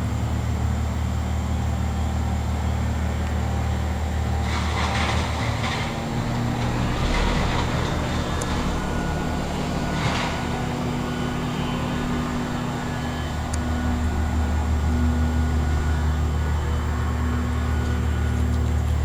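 Bryant two-stage heat pump's outdoor unit running in cooling mode: a steady low hum from the compressor and condenser fan. Three brief hissing bursts come and go in the first half.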